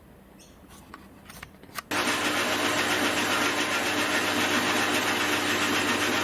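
A few faint clicks, then about two seconds in a lathe's motor starts abruptly and runs at a steady speed, a humming machine noise with a steady hiss. The lathe is turning a rough aluminium casting for clamp jaws.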